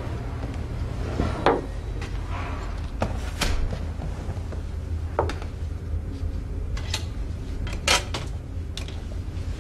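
Quiet room sound with a steady low hum, broken by a handful of short sharp knocks and clinks, like objects being handled and set down; the loudest comes about eight seconds in.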